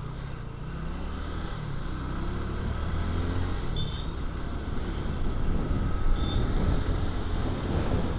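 A two-wheeler's engine running under the rider, with wind and road noise, as it rides through traffic. The engine pitch rises as it speeds up and the sound grows louder toward the end, with two short high beeps along the way.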